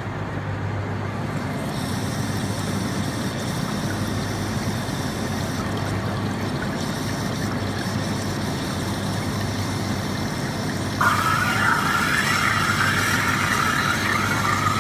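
GF AgieCharmilles wire EDM machine starting a cut: a steady machine hum with water flushing from the upper wire guide and splashing into the tank. About 11 seconds in, a louder steady hiss sets in suddenly as the cut gets under way.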